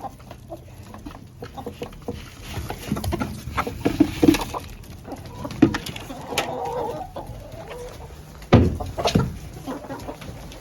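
Chickens clucking as they feed on scattered sunflower seeds, with short knocks throughout and two louder thumps near the end.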